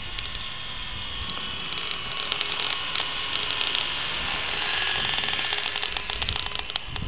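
Small electric RC helicopter (WL Toys V912) running near full throttle: a steady whir of motor and rotors with a fast mechanical clicking that grows busier in the second half.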